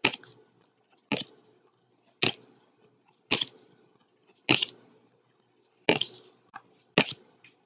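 Football trading cards being flicked through one at a time, each card snapping against the stack with a short, sharp papery click about once a second, seven in all.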